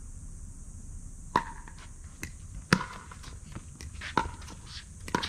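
Paddles striking a plastic pickleball during a rally: four sharp pops roughly every second and a half, the second the loudest, with fainter ticks in between.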